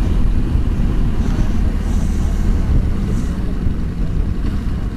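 Wind noise on the microphone of a moving motorcycle, a steady low rumble, with the motorcycle's engine running beneath it.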